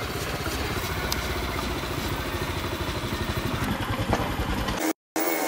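Motorcycle engine running as the bike rides slowly, with a steady, evenly pulsing exhaust beat. The sound cuts off suddenly near the end.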